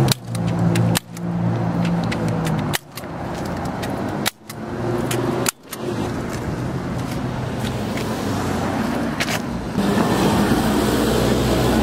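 Street traffic, cars and an engine hum going by, with a run of sharp clicks from a hand staple gun fastening paper flyers to a wooden utility pole. About ten seconds in the traffic turns to a louder, steadier rush.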